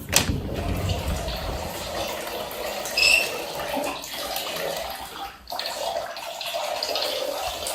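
Running water, an even rushing hiss, with a brief high-pitched squeak about three seconds in.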